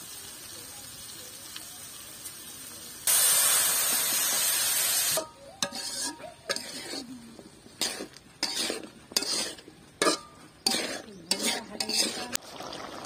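Hot oil in an iron karai sizzling faintly, then a sudden loud sizzle about three seconds in as prawns and spice paste go in with the potato and Malabar spinach stems. After that comes a run of quick scraping strokes of a metal spatula against the iron wok as the mixture is stirred.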